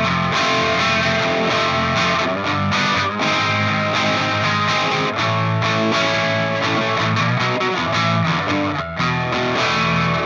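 Electric guitar played through distortion and effects, a continuous run of picked notes and chords.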